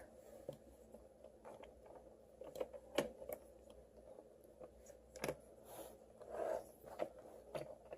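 Faint, scattered clicks and light knocks of wooden toy train engines being handled and set down.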